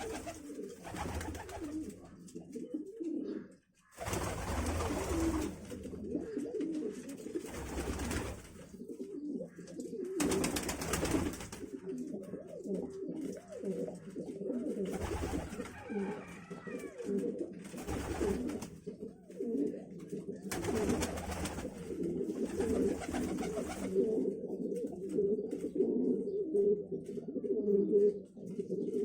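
Pigeons or doves cooing continuously, several birds' low coos overlapping, with short bursts of noise every few seconds.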